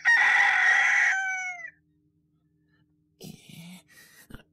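A rooster crowing once, a call of under two seconds whose tail drops in pitch, the cue that morning has come. Faint breathy sounds follow near the end.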